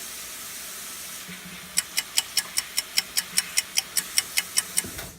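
Kitchen tap running into a sink in a steady hiss, as hands are washed. From about two seconds in, a rapid, even series of sharp clicks, about five a second, plays over it, and both stop just before the end.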